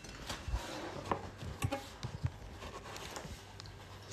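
Handling noise from a phone being moved around: scattered taps, knocks and a few low thumps.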